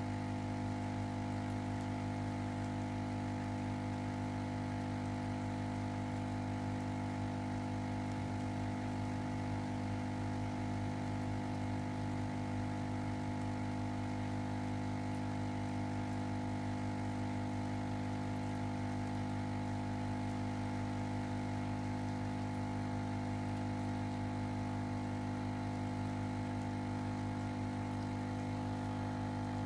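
Ozone generator running, giving off a steady electrical hum with many overtones that stays unchanged throughout.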